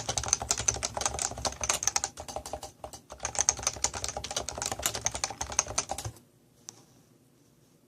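Fast typing on a Leopold FC660C keyboard with Topre electrostatic capacitive switches: a dense run of keystrokes that dips briefly about three seconds in and stops about six seconds in.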